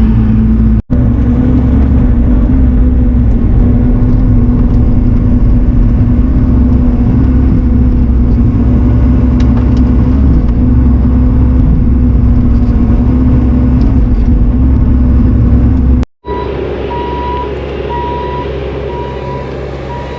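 Heavy-equipment diesel engine running steadily at a constant speed. After an abrupt cut near the end, a reversing alarm beeps at an even pace over a quieter engine.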